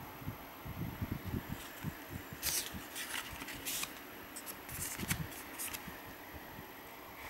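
Pages of a paper passport booklet being turned by hand: a cluster of crisp paper rustles and flicks a few seconds in, over soft, irregular low thumps of fingers handling close to the microphone.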